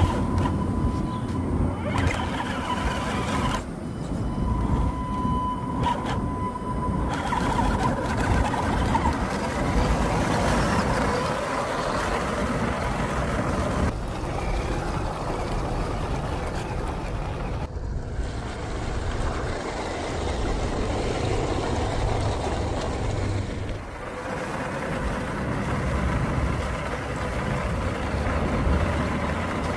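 Small electric MN128 RC off-road car driving through grass, mud and shallow water: a steady motor-and-gearbox whine with rumbling wheel and terrain noise, changing abruptly several times.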